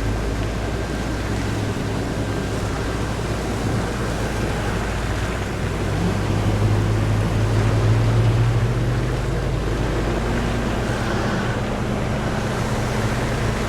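Steady noise of vehicle traffic with wind on the microphone; a low engine sound swells about six seconds in and eases off a few seconds later.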